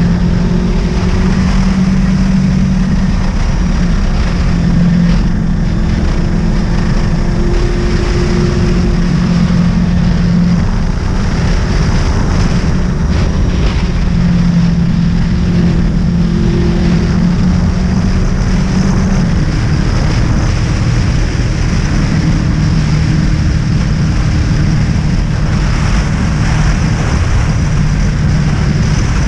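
Honda VFR800's V4 engine running at road speed, its pitch shifting a little with the throttle, under steady wind noise on the microphone.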